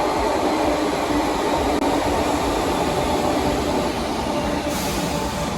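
Passenger train running: a steady rumble with a faint hum, and a higher hiss coming in near the end.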